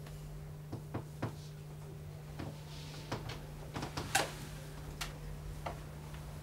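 Irregular light knocks and clicks as a performer moves about, sits on a stool and handles props. The loudest comes about four seconds in, over a steady low hum.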